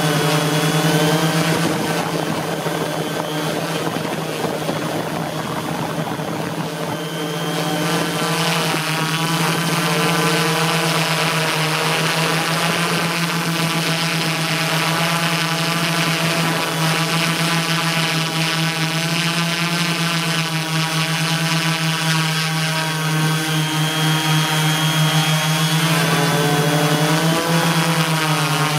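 Align M480L multicopter's electric motors and propellers droning in flight, a steady hum with higher tones whose pitch wavers up and down.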